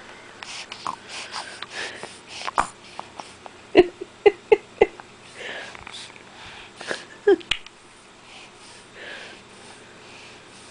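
A two-month-old baby breathing through a congested, stuffed-up nose, with short wheezy snorts and sniffles. A quick run of four snorts comes about four seconds in, and two more come near seven seconds.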